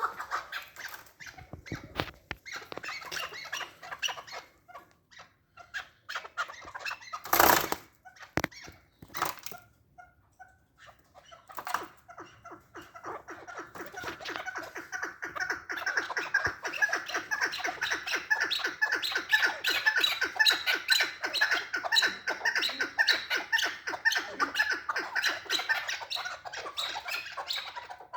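Chukar partridge calling: scattered clucks, then from about twelve seconds in a long, fast, steady run of repeated clucking notes. A brief loud noise sounds once about seven seconds in.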